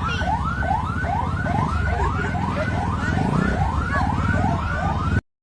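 Electronic siren whooping in quick rising sweeps, about three a second, over a low rumble; it cuts off suddenly near the end.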